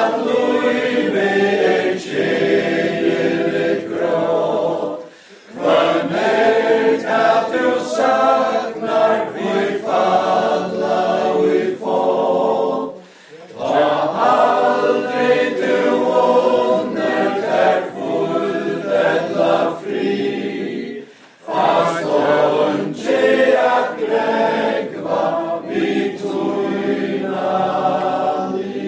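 Unaccompanied male-voice choir singing in parts, its phrases broken by three short pauses, fading out near the end.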